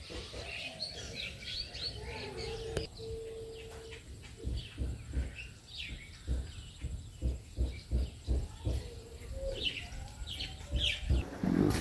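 Small birds chirping with short, repeated calls, and a dove cooing in the first few seconds. A run of low thumps comes through the second half.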